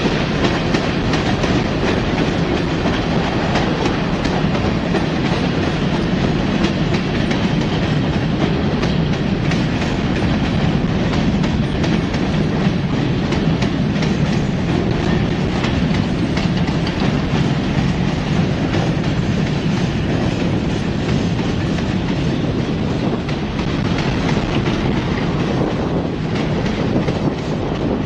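Slow-moving freight train of tank cars and covered hoppers rolling past, a steady rumble with the clickety-clack of wheels over the rail joints.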